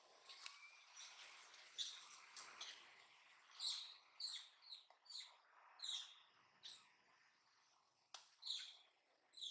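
Baby long-tailed macaque crying: a series of short, high-pitched squealing calls that fall in pitch. They come faintly at first, then clearly about one to two a second from a few seconds in.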